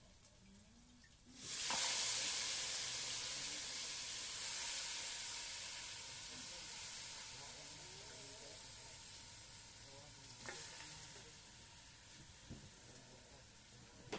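Native chicken pieces hitting hot oil in a cooking pot and sizzling loudly on the browned garlic, ginger and onion: the first searing stage of a chicken tinola. The sizzle starts suddenly about a second and a half in and slowly dies down, with a brief flare about ten seconds in.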